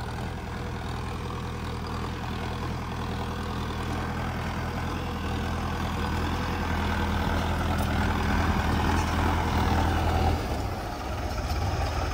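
Two diesel tractors, a Mahindra Arjun Novo 605 Di and a New Holland 3630 TX, running at a fixed throttle in four-wheel drive, pulling tined cultivators through dry soil. The steady engine drone grows louder, then drops sharply about ten seconds in.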